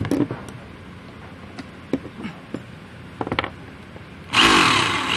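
A few knocks and clicks of handling, then the rotary hammer's electric motor starts about four seconds in and runs loudly with a new bit fitted: a test run of the freshly reassembled chuck.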